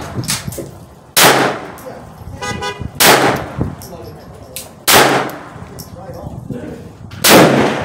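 Glock 44 .22 LR pistol firing single shots with high-velocity ammunition, four sharp reports about two seconds apart. The pistol cycles each round without a malfunction.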